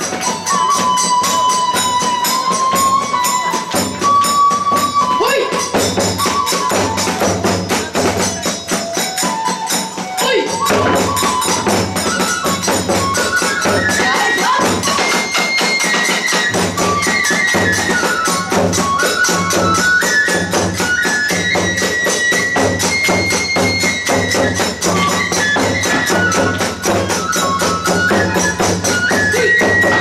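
Hiroshima kagura music: a large barrel drum (ōdō) beaten in a fast steady rhythm, small hand cymbals (tebyoshi) clashing continuously, and a bamboo transverse flute (fue) playing a stepped melody. The big drum drops out briefly twice, about a third of the way in and around the middle.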